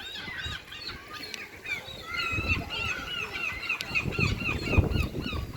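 A crowd of seagulls calling at once, many short high squealing cries overlapping, with a quick repeated series of calls from about two seconds in, over a low rumble.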